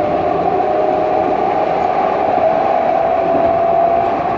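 Luas light-rail tram running along its track: a steady rumble with a whine that rises slowly in pitch.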